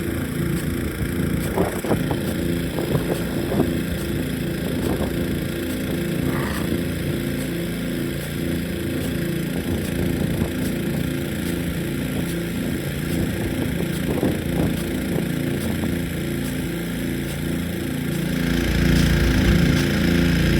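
An engine running steadily at a constant speed, with the hiss of water spraying from a Nelson P150 big gun sprinkler and a few sharp knocks. About 18 seconds in, a low rumble of wind on the microphone comes up.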